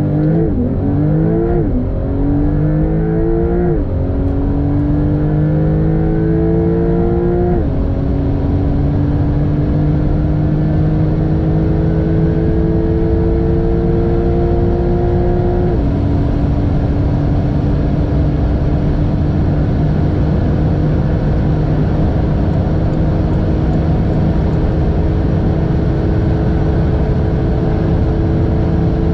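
Porsche 911 Turbo S (992) twin-turbo flat-six at full-throttle acceleration after a launch-control start, heard inside the cabin. The engine note climbs and drops with each quick upshift, the shifts coming further apart, the last about 16 seconds in. After that the note climbs slowly over a steady rush of wind and road noise as the car passes 300 km/h.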